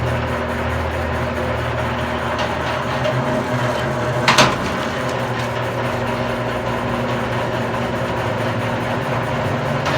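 Commercial wire stripping machine running steadily, its motor humming as copper cable is fed through to strip the insulation, with one sharp clack about four seconds in.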